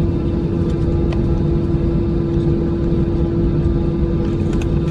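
An engine running steadily: a low rumble with one constant droning tone over it.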